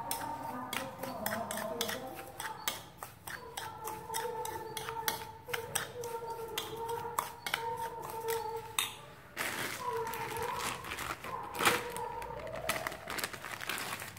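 Metal spoon stirring a dry salt-and-chili mix in a bowl, scraping and clinking quickly and repeatedly against the bowl's sides, with one louder clink near the end.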